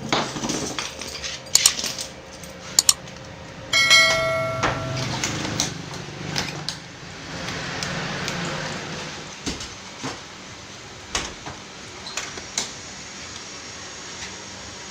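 Metal parts being handled and knocked together: scattered clinks and knocks, with one piece ringing briefly about four seconds in.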